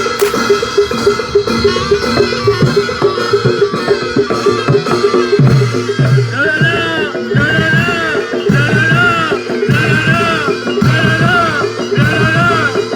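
Barongan gamelan music: drumming and metal percussion in a quick, steady pattern, joined about six seconds in by a repeated rising-and-falling melodic phrase.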